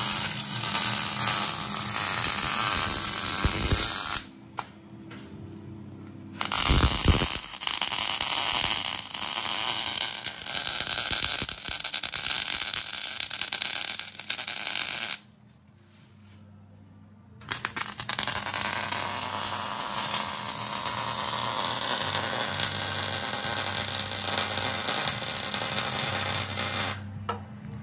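Wire-feed welder arc crackling as welds are laid on a steel truck frame, in three long runs with short pauses between, the second starting with a low thump.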